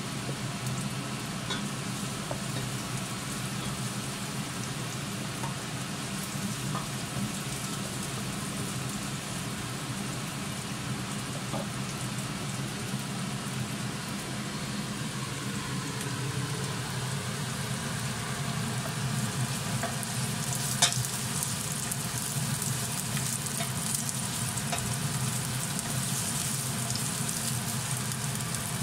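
Sliced onion and ginger sizzling in a little hot oil in a stainless steel saucepan. The sizzle grows stronger in the second half as the pan heats, over a steady low hum, with a single sharp knock about two-thirds of the way in.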